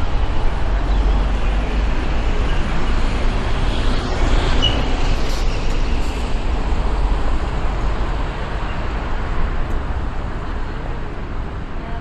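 Steady urban background noise with a deep rumble underneath and no clear single event.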